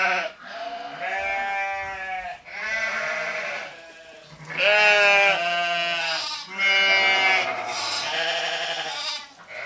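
An animal bleating in a series of long, wavering calls, about six in all, one after another.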